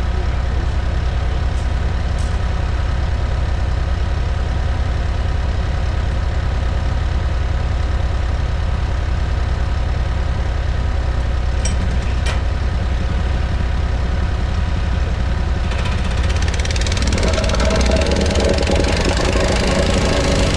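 Engine of a piece of landscaping machinery running steadily, growing louder and fuller near the end as it is worked harder.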